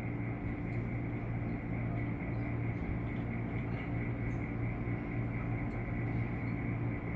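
Steady hum of a stationary 115 series electric train's onboard auxiliary machinery running as it waits at the platform, with a few faint clicks.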